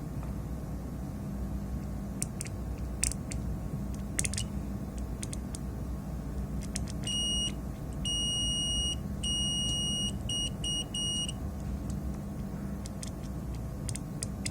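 Digital multimeter's continuity buzzer beeping as the probes touch points on the circuit board: a short beep, two longer ones, then several quick short beeps. The beep signals a closed connection, no open circuit, between the probed points. A few light clicks come earlier, over a steady low hum.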